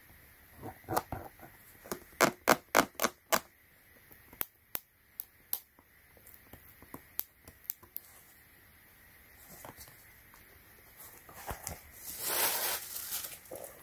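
Hands handling a pair of sneakers: a quick run of sharp clicks and taps about a second in, then scattered single clicks, and rustling near the end.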